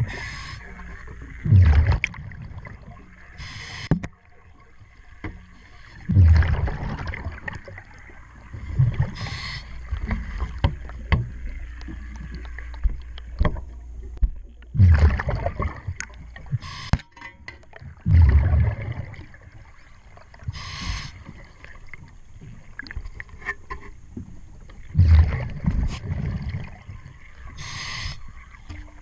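Diver breathing through a regulator underwater: a hiss on each inhale and a low rush of exhaled bubbles every several seconds, the bubble bursts being the loudest sound. Scattered small clicks and taps of metal tools on the propeller shaft hardware come in between.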